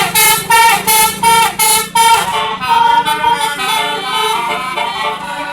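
Basuri multi-tone 'telolet' bus horn: a string of short loud blasts, about two a second, then a run of changing notes playing a tune.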